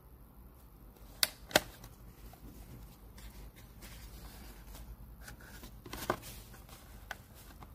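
Cardboard product boxes being handled, with light rustling and a few sharp clicks: two close together about a second and a half in, a louder one about six seconds in, and a small one near the end.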